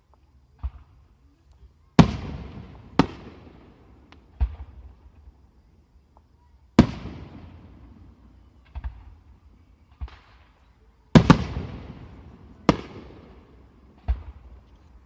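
Fireworks exploding: about ten sharp bangs at irregular intervals. The three loudest each trail off in a couple of seconds of crackling.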